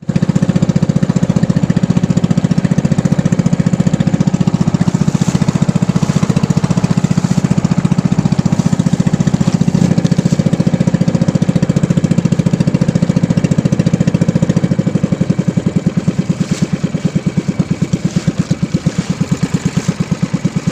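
Small fishing boat's engine running with a rapid, even pulsing, slowing and easing off over the last few seconds as the throttle comes back.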